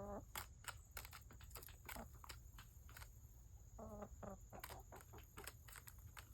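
Hens clucking faintly, with one short cluck about four seconds in, among scattered faint taps as they peck at a cabbage.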